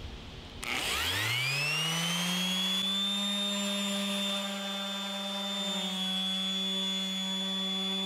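Electric random orbital sander switched on. Its motor winds up in pitch over about a second, then runs at a steady whine while gently sanding epoxy drips off a coated toilet tank lid.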